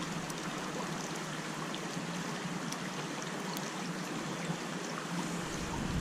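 Creek water running steadily over rocks and gravel, a constant even rush with a few faint small ticks.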